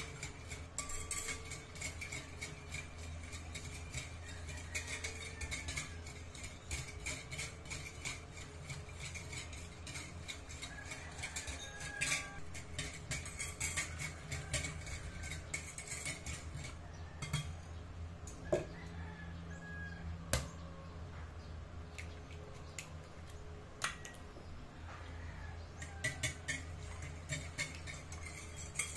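Wire whisk beating batter in a glass mixing bowl, its wires clicking and tapping against the glass in quick runs of strokes, with a few louder clinks. A steady low hum sits underneath.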